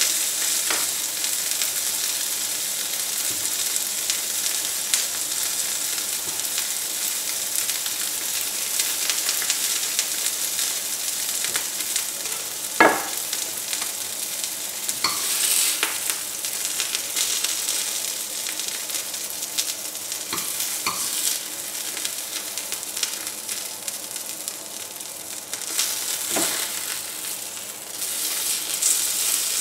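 White fish fillets sizzling steadily in hot oil in a frying pan as they finish cooking, with a few sharp knocks along the way, the loudest about halfway through.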